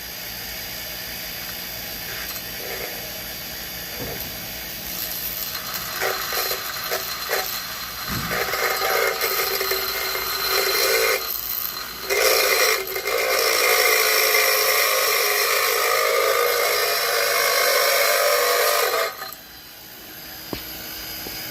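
Grinder running as a welded steel bolt-and-washer part is ground against the wheel: loud, harsh metal grinding that starts about a quarter of the way in, breaks off briefly near the middle, and stops shortly before the end.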